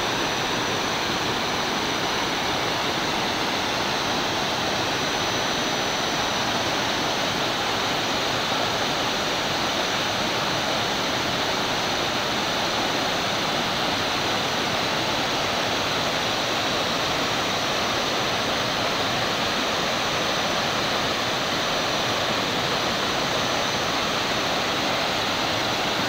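Waterfall rushing as water pours down over a wide rock terrace: a steady, even roar of falling water that does not change.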